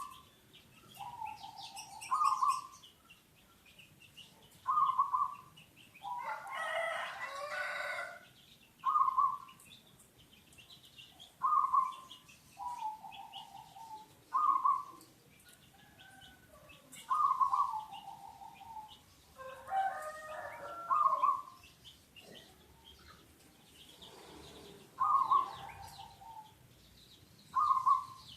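A zebra dove (perkutut) cooing in short repeated phrases, one every two to three seconds. A rooster crows twice, about six seconds in and again about twenty seconds in, and small birds chirp faintly.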